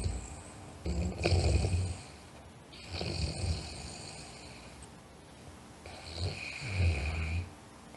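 A sleeping person snoring: three rasping snores, each a low rattle with a hissy top, coming about every two and a half seconds, the middle one softer.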